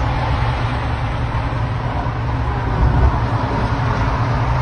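Steady road and wind noise inside a moving car with a rear side window open, dominated by a heavy low rumble of wind buffeting.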